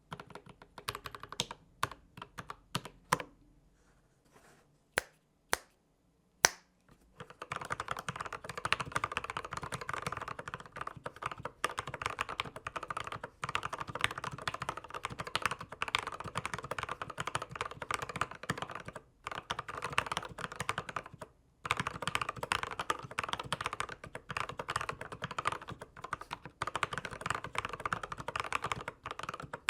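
Typing on a Dark Project KD87A mechanical keyboard with factory-lubed Gateron switches. A few separate keystrokes come first, then fast continuous typing from about seven seconds in, broken by two brief pauses.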